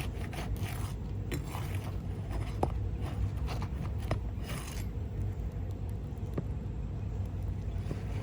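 Asphalt roof shingles being worked by hand, with scattered scrapes, crackles and small clicks that are busiest in the first few seconds, over a steady low rumble.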